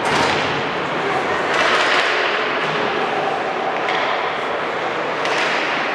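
Ice hockey game in an echoing arena: skates scraping the ice in short hissing bursts, with knocks of sticks and puck, over a steady background of crowd and players.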